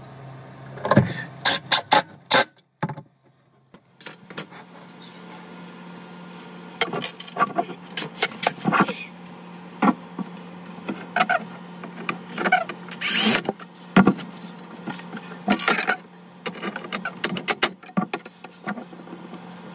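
Irregular clicks, knocks and clatter from working with a Ryobi cordless drill and hardware inside a sink cabinet, a few of them lasting up to half a second, over a steady low hum.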